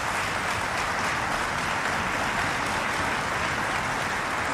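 Members of parliament applauding: steady, dense clapping of many hands.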